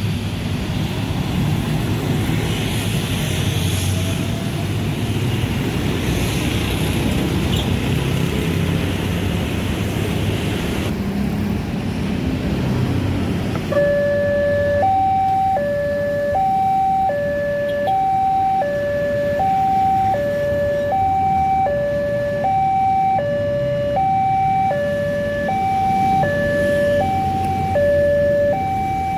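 Road traffic of motorbikes and cars passing, then about halfway through a railway level-crossing warning alarm starts: an electronic two-tone signal switching back and forth between two pitches, each held about half a second, the warning that a train is approaching and the barrier is closing.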